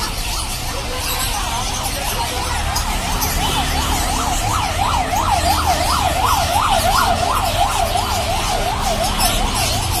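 A yelping siren whose pitch rises and falls about three times a second, growing louder towards the middle and then easing off, over low traffic rumble.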